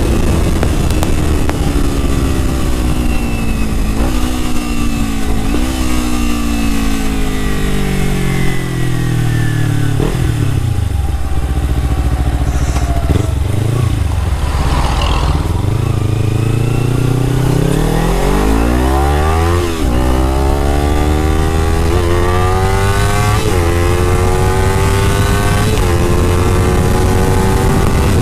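Kawasaki sport motorcycle engine heard from the rider's seat, with wind rumble. The engine note falls as the bike slows, with a couple of short rev jumps on the way down, then climbs steeply as it accelerates hard through several gear changes.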